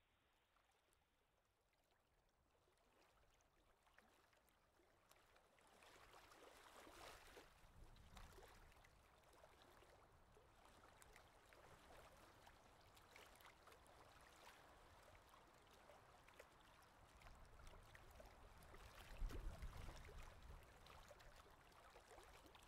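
Faint underwater ambience: a watery hiss full of small crackles that fades in over the first few seconds, with a low rumble swelling about three-quarters of the way through.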